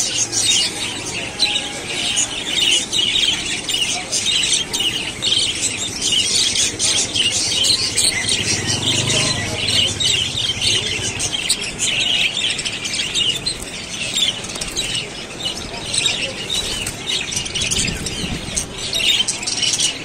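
A flock of budgerigars chattering and chirping all at once: a continuous, dense warble of many small parrot voices.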